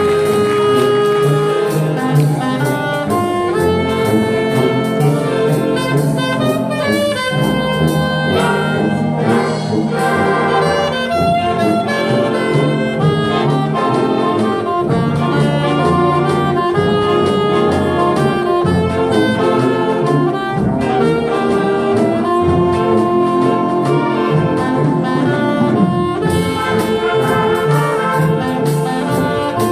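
Wind orchestra (concert band) playing a swinging, jazz-flavoured arrangement, with brass prominent and a solo alto or tenor saxophone featured over the band.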